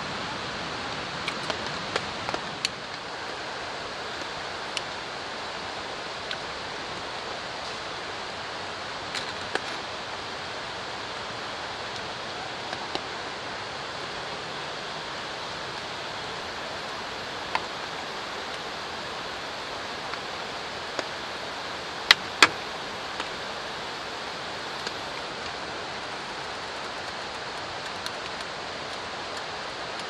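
Steady rushing hiss of drizzling rain and running water. Scattered light clicks of chopsticks and metal cookware, the two loudest close together about two-thirds of the way through.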